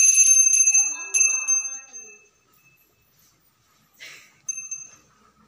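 Small brass puja hand bell ringing steadily, struck again twice about a second in, then dying away; after a brief rustle, the same bell rings briefly once more near the end.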